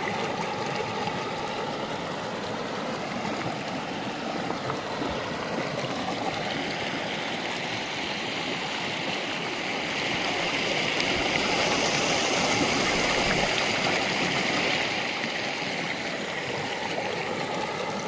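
The Indus River's current rushing steadily, swelling louder for a few seconds about two-thirds of the way through.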